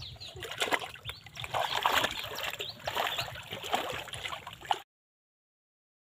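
Shallow floodwater sloshing and splashing as hands and legs move through it, feeling for fish. The sound cuts off suddenly near the end.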